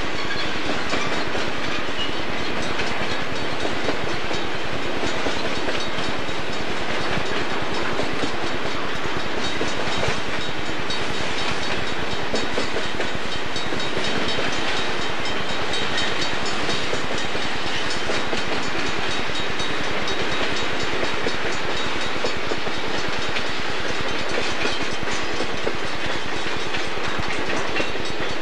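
Southern Pacific freight cars, autoracks and boxcars, rolling steadily past at close range, a continuous rumble with the clatter of wheels on the rails.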